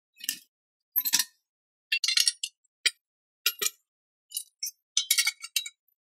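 Metal bicycle parts, a chainring crankset, cranks and tubes, clinking and clanking as they are handled and set down on concrete: a quick string of about a dozen short metallic clinks with brief silences between.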